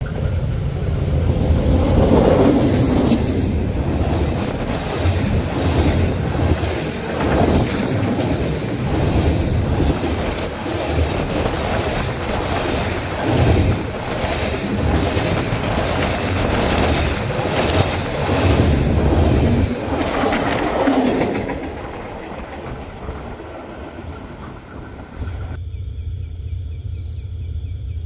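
A freight train passing close by at speed: loud rumble of the wagons with a regular clickety-clack of wheels over rail joints, fading away after about twenty seconds. Near the end the sound switches abruptly to a quieter steady hum with high-pitched insect chirring.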